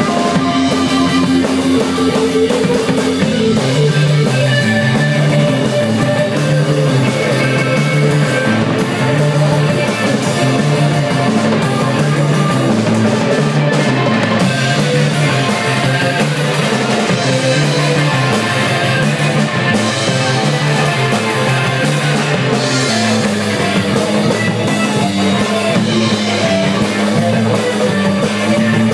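A rock band playing live: guitars and drum kit, loud and steady, with a low riff repeating throughout.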